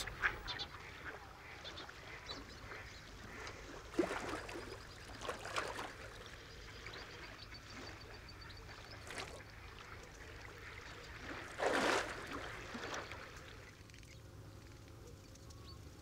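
Mallard ducks quacking now and then: a few short, scattered calls, the loudest about twelve seconds in.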